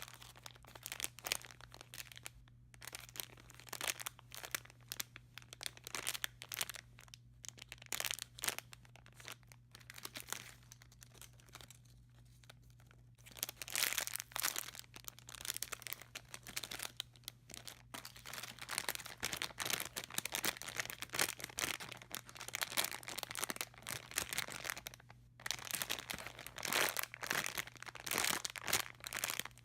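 Squishy toy packaging being handled and crinkled: irregular crackling and rustling, sparse and soft at first, then denser and louder from about halfway through, with a brief pause near the end.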